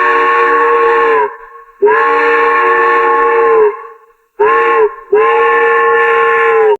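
Old-cartoon steam train whistle sounding a multi-note chord in four blasts: a long blast already going and ending about a second in, a second long blast, a short toot, then a final long blast that cuts off sharply at the end. Each blast sags a little in pitch as it dies away.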